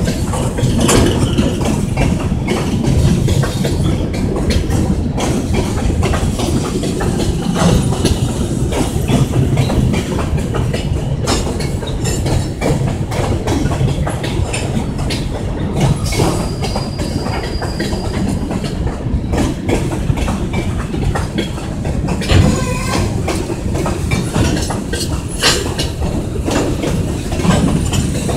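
Kansas City Southern de México freight train's open-top cars rolling past in a steady rumble, the wheels clicking irregularly over rail joints, with a brief high squeal about halfway through.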